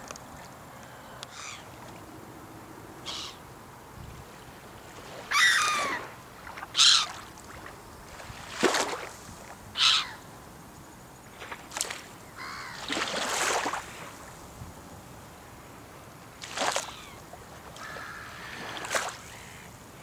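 Gulls calling, about ten short calls at irregular intervals, the loudest a few seconds in, over a steady background hiss.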